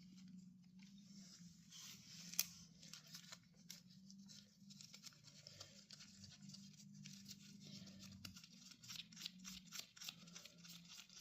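Faint handling noise of motorcycle chain parts: small scattered clicks and rustles, with one sharper click about two and a half seconds in, over a faint steady low hum.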